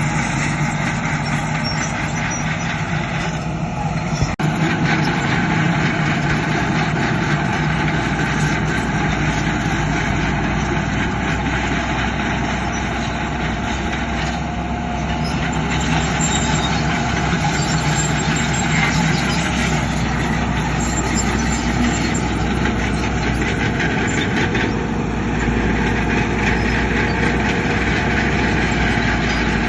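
Heavy diesel earthmoving machinery running steadily under load, with one sharp knock about four seconds in.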